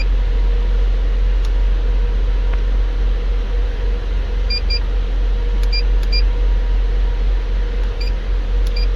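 Steady low engine hum from the running truck and refrigeration unit, with about six short high beeps from the reefer controller's keypad as its buttons are pressed, all in the second half.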